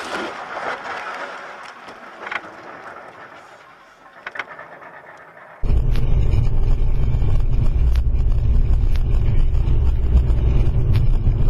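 The dying-away aftermath of a car crash: scraping and rattling with a few sharp knocks, fading over about five seconds. Then, abruptly, the steady low rumble of road and wind noise inside a moving car, with occasional faint ticks.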